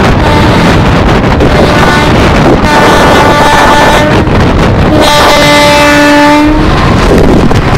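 Two long blasts of an Indian Railways electric locomotive's horn, the first on a higher note from about a third of the way in, the second on a lower note about five seconds in. Underneath is a loud, steady rush of wind and running noise from a moving train as another train passes close alongside on the next track.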